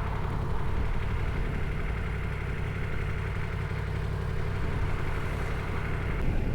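Yamaha MT-10's crossplane inline-four engine running steadily on its stock exhaust, a low, even drone with no change in revs. It has a light, rattly note that the rider likens to a sewing machine.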